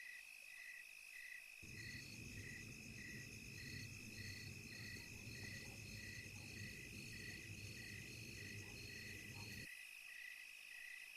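Faint chorus of night insects, crickets: a steady high trill with a chirp repeating about one and a half times a second. A low rumble starts about a second and a half in and stops near the end.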